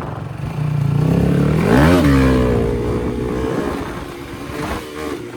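Motorcycle engine revving hard, its pitch climbing steeply to a peak about two seconds in, then dropping and holding lower before fading.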